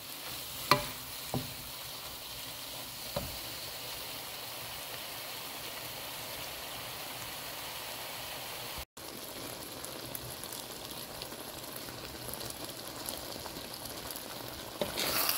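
Vegetables and rabbit stir-frying in a hot wok: a steady sizzle, with a few sharp knocks of the wooden spatula against the pan in the first few seconds. The sizzle drops out for an instant about nine seconds in, then goes on, growing louder near the end.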